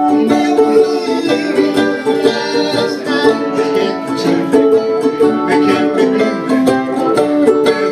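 Live music: a small plucked string instrument picked and strummed in quick, steady notes.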